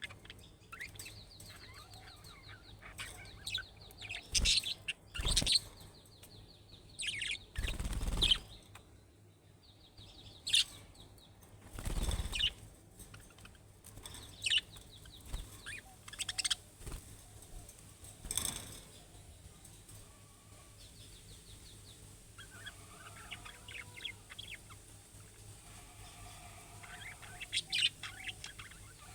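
Budgerigars chirping and warbling in quick, scratchy trills and short calls, with a few louder rustles among them.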